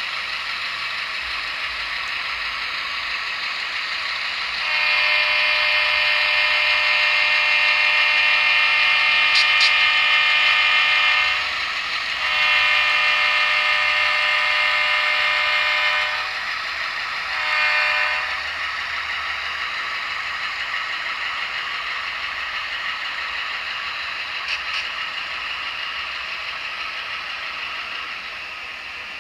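Sampled horn of an HO-scale Atlas GE diesel model, played by its Tsunami sound decoder: two long blasts and one short blast, over the steady sampled engine sound of the GE diesels.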